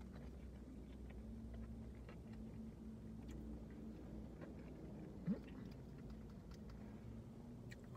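Faint chewing and mouth sounds of someone eating a fried chicken sandwich and fries, over a low steady hum. A short rising squeak about five seconds in is the loudest sound.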